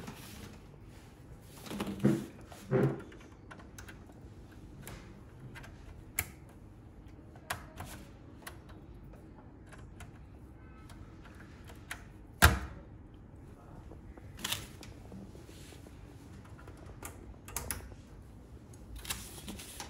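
Scattered small plastic clicks and taps with cable-handling noise as LC fiber-optic connectors are fitted into an SFP module, with one louder sharp click about midway.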